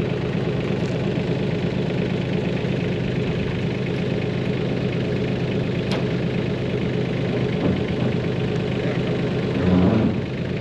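Tractor engine idling steadily, with a single light click about six seconds in.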